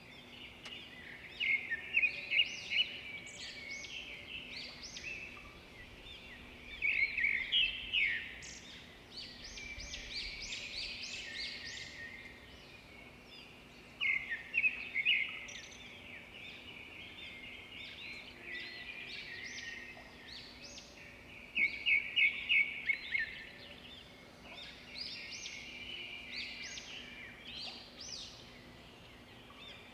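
Small birds singing, with bursts of rapid high chirps every several seconds and quieter twittering between them.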